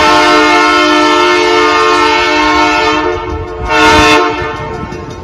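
Locomotive horn blowing a long, loud chord of several notes at once as the train approaches a level crossing. It dips and swells again briefly about four seconds in, then stops.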